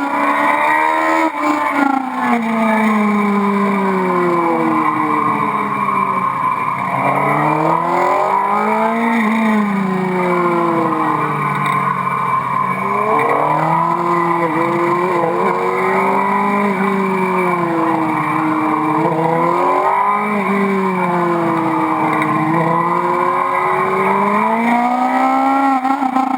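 Yamaha YZF-R6 inline-four engine heard on board while riding, its revs falling and climbing again several times as the rider backs off and accelerates.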